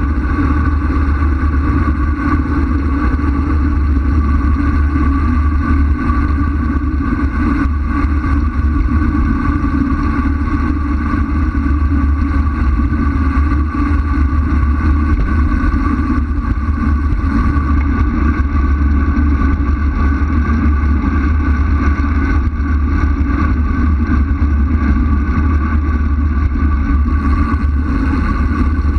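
Loud, steady wind rush buffeting a camera microphone that is moving fast downhill, with a heavy low rumble and an even hum throughout.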